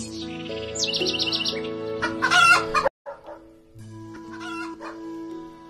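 A rooster crowing loudly about two seconds in, over steady background music. The sound cuts off just before the midpoint, and the music resumes with fainter crowing.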